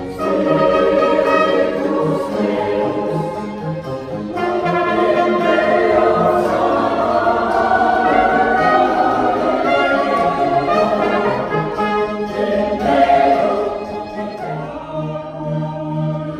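Mixed choir singing with a baroque chamber ensemble of strings and flutes. The choir comes in strongly at the start and swells again about four seconds in, then thins out near the end over a held low note.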